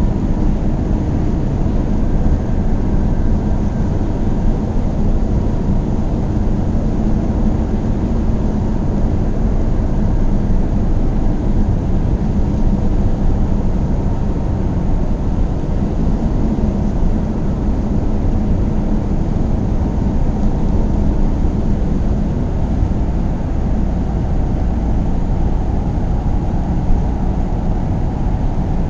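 Car driving along steadily: a constant low rumble of engine and tyre noise with a faint hum, unchanging throughout.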